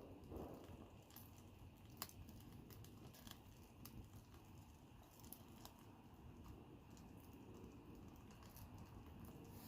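Wood fire crackling faintly, with scattered sharp pops over a soft steady rumble.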